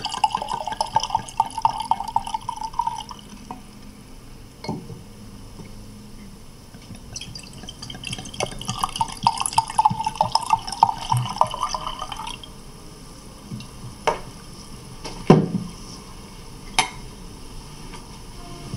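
Liquid pouring into a glass in two spells, the first from the start to about three seconds in, the second from about eight to twelve seconds in, with a few sharp drips or light knocks between and after.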